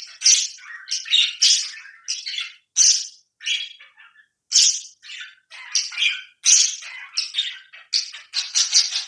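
Pet parrots squawking and chattering: a quick run of short, harsh, high calls, about two or three a second, with short pauses between.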